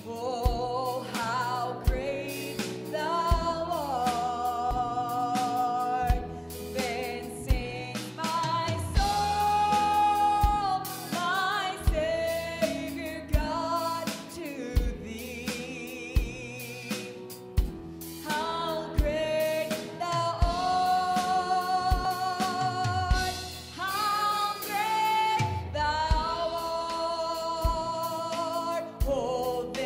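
Live gospel worship song: a woman sings lead with long held notes over a band of piano, acoustic guitar, bass guitar and drum kit, the drums keeping a steady beat.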